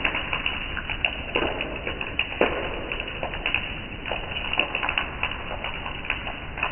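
Water droplets falling and plinking, several irregular drips a second, one a little louder about two and a half seconds in.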